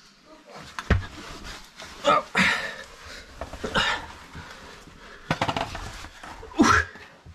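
A caver breathing hard and grunting while squeezing through a tight rock crawlway, in about half a dozen strained breaths, with a sharp knock or scrape of body or gear on the rock about a second in.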